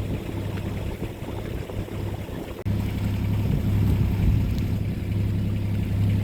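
Boat engine running steadily, with wind and water noise. About two and a half seconds in, the sound cuts to a louder, closer, steady hum from the Beta 25 diesel engine.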